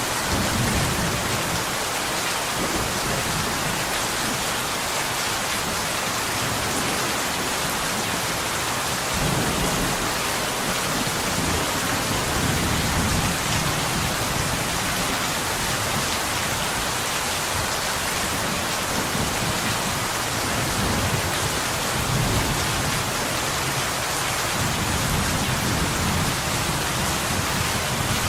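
Steady rain pattering on window glass, a dense even hiss, with low rumbles of distant thunder rising and fading several times underneath.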